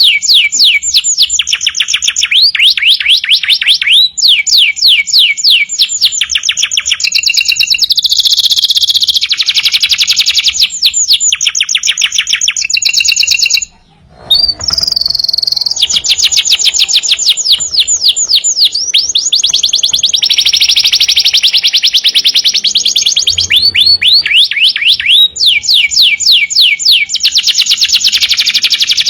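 Domestic canary singing continuously: long, high-pitched rolling trills of rapidly repeated notes, switching from one phrase to the next, with a brief break about halfway through.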